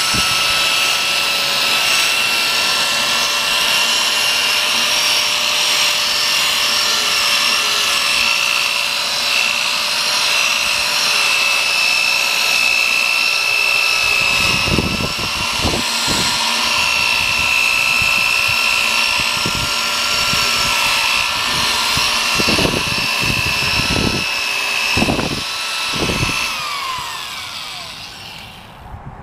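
Electric drill spinning a foam polishing pad against a plastic headlight lens, buffing in the polishing compound: a steady motor whine. Some low thumps come in during the second half. Near the end the whine falls in pitch as the drill winds down, then stops.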